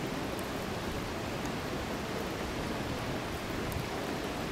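Steady rushing of river water, with a fountain jet splashing down into the river.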